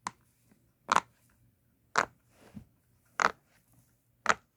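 Bubbles of a push-pop fidget toy being pressed through: five short, sharp pops about a second apart.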